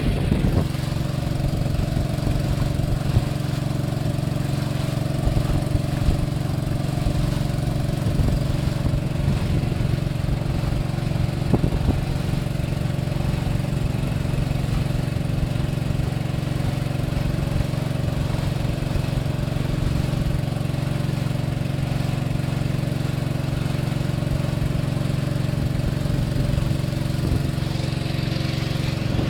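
Small wooden river boat's motor running steadily at cruising speed, a constant even drone.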